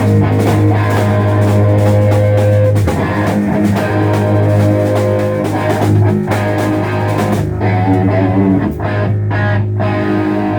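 Loud live rock band playing at a sound check: electric guitar over a held bass note and a drum kit.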